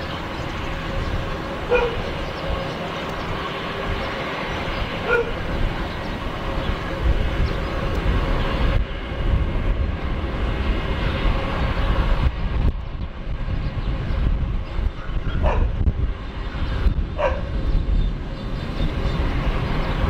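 Twin-engine turboprop airliner taking off: a steady drone of engines and propellers with a deep rumble that grows heavier in the second half as it lifts off and climbs. Four short sharp calls sound in the background.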